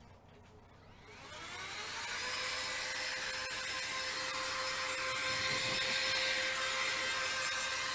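An electric motor starts about a second in, its whine rising over about a second as it spins up, then running steadily with a loud, hissing hum.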